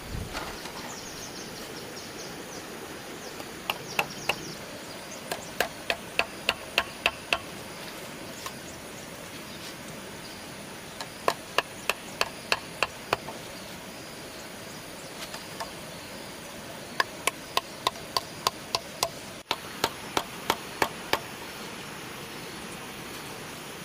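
Sharp tool strikes on bamboo, in several quick runs of about three knocks a second with pauses between them, as bamboo is worked for a fence.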